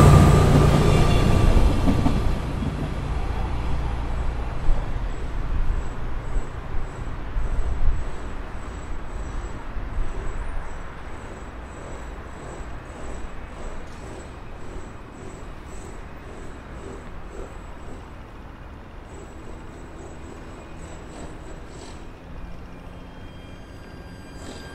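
City street traffic noise, loud at first and dying away over the first ten seconds or so into a low, steady hum of distant traffic, with a faint regular high ticking through the middle.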